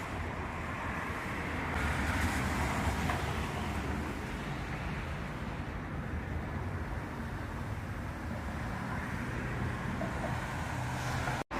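Steady thunderstorm wind noise with a low rumble beneath it, swelling a little a couple of seconds in; the sound drops out for an instant near the end.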